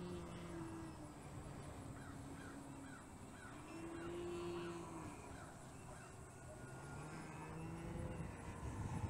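Electric motor and propeller of a distant RC aerobatic airplane in flight, a low drone whose pitch rises and falls with the throttle. It swells loudest about four seconds in.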